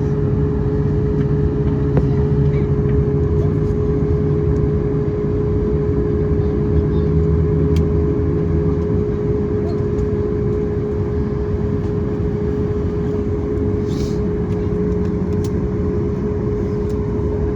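Boeing 737 MAX 8's CFM LEAP-1B jet engines running, heard inside the cabin as a loud, steady rumble with one steady tone over it. A few faint clicks come through about midway and near the end.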